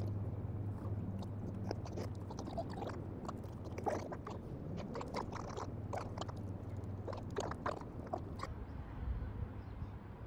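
Close-up eating and handling of food and tableware: many small, irregular clicks, scrapes and crunches over a steady low hum.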